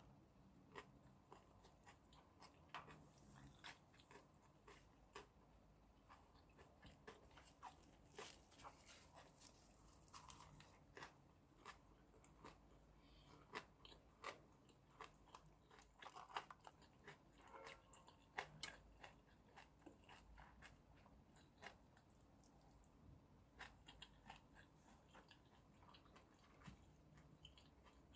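A person eating brown crab and crab-shell rice close to the microphone: quiet, irregular crunching and chewing, with sharp clicks coming several times a second.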